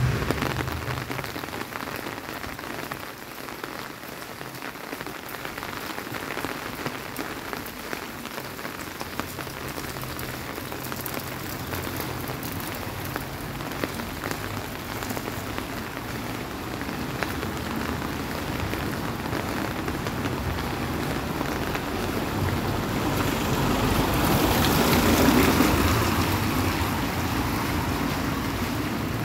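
Steady rain falling and pattering on a stone-paved street. A louder rush swells and fades about five seconds before the end.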